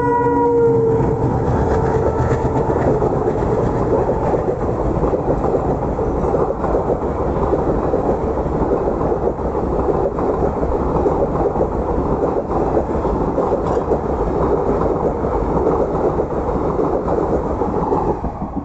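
The horn of a WDG-3A ALCO diesel locomotive dies away about a second in. The train then runs past close by, a loud, steady rumble with wheels clicking over rail joints, and it cuts off sharply near the end.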